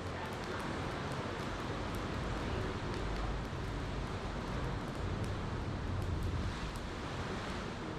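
Ocean waves washing on the shore as a steady, slowly swelling rush, with a campfire crackling in small sharp pops scattered through it and a low rumble of wind on the microphone.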